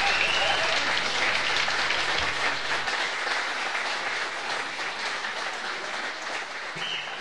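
Live audience applauding between songs, slowly dying away.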